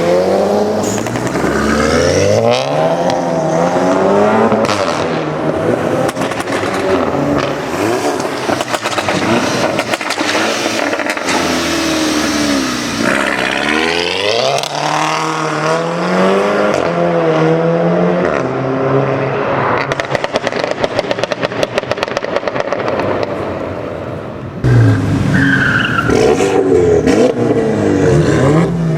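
Turbocharged four-cylinder Volkswagen Golf engine revving and accelerating hard, its pitch climbing and dropping again and again through gear changes. Near the end the sound cuts abruptly to another loud run.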